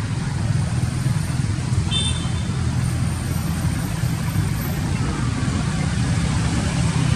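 Steady low mechanical rumble of vehicle or traffic noise, with a brief high chirp about two seconds in.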